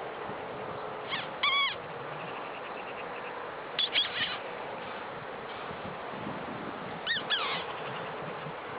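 Imitation mouse squeaks, high and thin, in three short bursts of a few squeaks each, a couple of seconds apart, over a steady background hiss. They are a squeaking call used to tease a cat.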